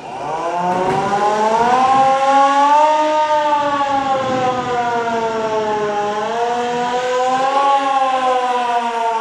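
Siren wailing: it winds up from low at the start, then rises and falls slowly in pitch, twice.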